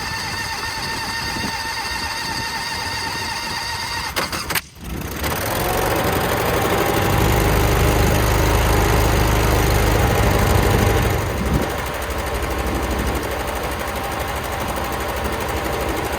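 Small engine running steadily. It cuts out abruptly about four and a half seconds in, then comes back louder with a deep rumble, easing off a little in the last few seconds.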